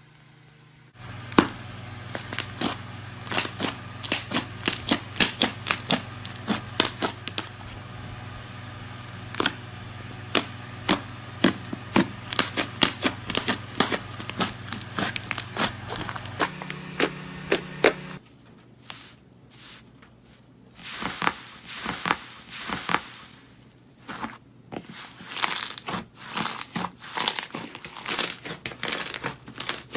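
Slime being squeezed and stretched by hand, giving a dense run of small crackles, pops and crinkling clicks. A steady low hum sits under the first half, rises in pitch briefly and stops about 18 seconds in, after which the crackling pauses for a few seconds before starting again.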